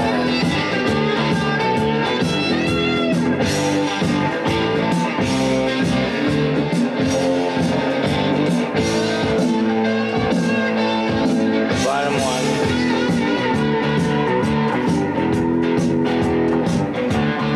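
Rock music with a bluesy electric-guitar riff, played from a vinyl LP on a record changer.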